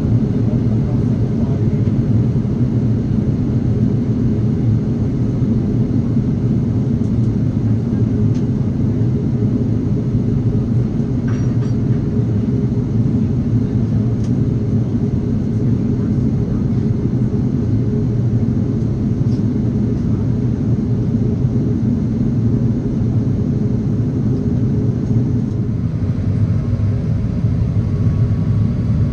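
Steady rumble of airflow and engines heard inside the cabin of an Airbus A330-900neo airliner descending.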